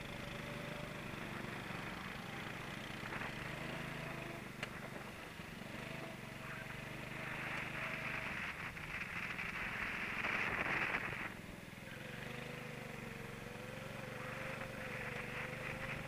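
Racing kart engine running at speed, heard onboard with wind rushing past the microphone. The engine note climbs along the straight and cuts back suddenly about eleven seconds in as the throttle is lifted, then rises again.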